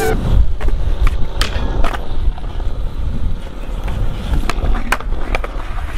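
Skateboard wheels rolling on a concrete skatepark surface: a steady low rumble broken by a scatter of sharp clicks and knocks.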